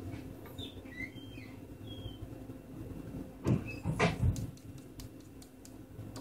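Fingers pressing and working at an LG Viper smartphone's plastic frame: a few faint squeaks, then a cluster of louder knocks and clicks about three and a half to four and a half seconds in, followed by a few light clicks.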